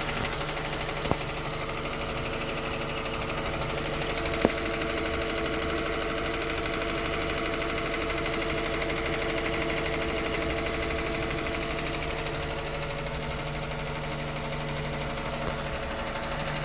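Suzuki Ignis K12D 1.2-litre engine idling steadily with a fast ticking, a noise that appears on the cold engine and goes away as it warms up. Two sharp clicks stand out, about one second in and again about four and a half seconds in.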